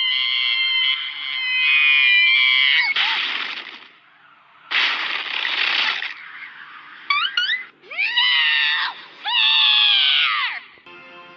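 High-pitched cartoon screaming: a long, wavering scream that breaks off about three seconds in, two harsh noisy bursts, then shorter rising squeals and two long falling wails.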